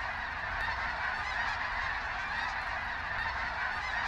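A huge flock of snow geese calling overhead: a dense, unbroken chorus of many overlapping honks.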